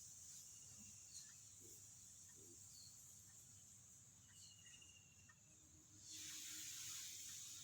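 Near silence: faint high-pitched background hiss that swells briefly about six seconds in, with a few faint short chirps.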